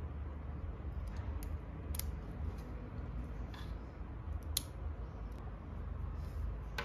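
Small brass padlock being handled with its key: a few sharp metallic clicks as the key goes into the keyway and is worked, over a steady low rumble.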